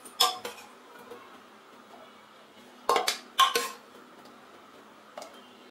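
A serving spoon knocking and clinking against a pressure cooker and a serving bowl as chickpea curry is ladled out: two knocks at the start, a quick run of about four around the middle, and one more near the end.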